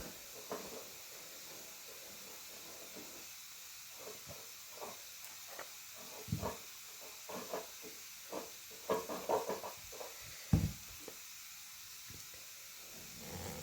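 Packaging of a speed cube box being cut open and handled: scattered short clicks and crinkles, with a few dull knocks about six and ten seconds in.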